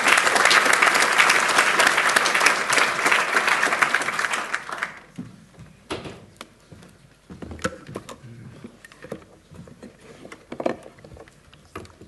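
Audience applauding, a dense clapping that stops about five seconds in. Scattered light knocks and clicks follow.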